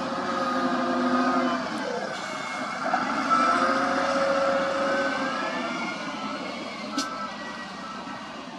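SDLG wheel loader's diesel engine running and revving as it works, with a whine that rises and falls in pitch. The sound grows fainter over the last few seconds as the loader drives away, and there is a sharp click about seven seconds in.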